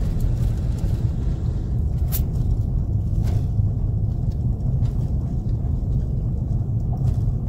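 Steady low rumble of a vehicle driving, engine and road noise heard from inside the vehicle, with two brief clicks about two and three seconds in.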